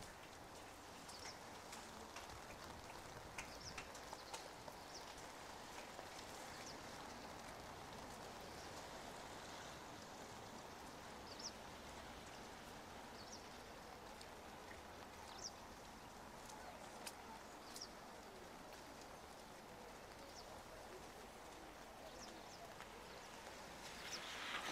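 Light rain falling on wet pavement and parked cars: a faint, steady hiss with scattered small drip ticks. Near the end the sound grows louder.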